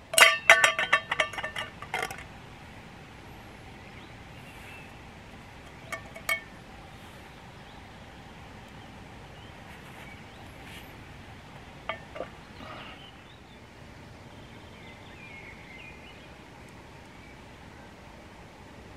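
Metal camp cookware clinking and ringing as it is handled: a quick run of clinks in the first two seconds, then single clinks about six and twelve seconds in.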